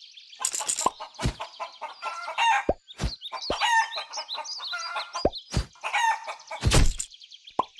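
Farmyard chicken sounds: hens clucking and chicks peeping in quick, overlapping calls, with a rooster crowing. Several short knocks run through it, and a loud burst comes near the end.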